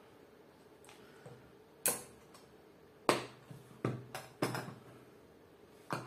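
Sharp plastic clicks and knocks from a small battery-powered LED work light (Parkside PALC 4 A1) being handled on a table while its rear battery cover is opened: about five separate clicks, roughly a second apart, starting about two seconds in.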